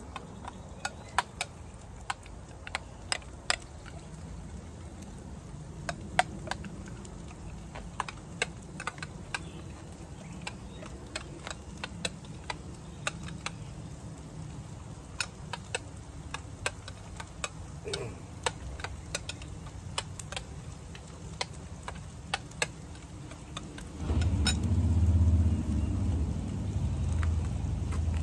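Spoon clicking and scraping against a ceramic bowl in irregular strokes as thickening grits are stirred. About 24 seconds in, a vehicle engine starts and keeps running, louder than the stirring.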